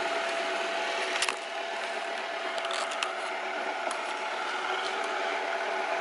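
Robot vacuum cleaner running: a steady motor whir with a constant whine, a sharp click about a second in and a few lighter ticks later.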